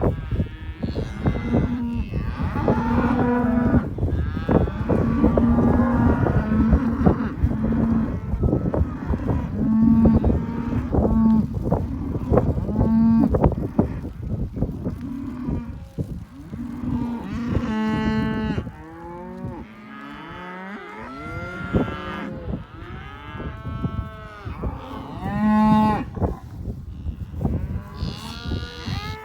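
A herd of cattle being driven, many cows mooing and bawling over one another in long, bending calls. A low rumble runs under the calls and eases about two-thirds of the way through.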